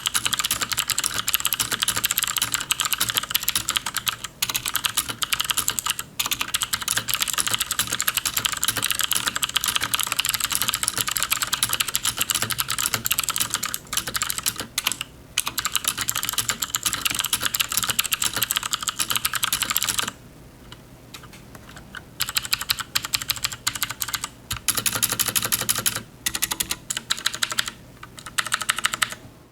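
Fast typing on a mechanical keyboard with clicky switches, a quick stream of sharp key clicks. The typing pauses for about two seconds two-thirds of the way through, then resumes in short bursts and stops at the very end.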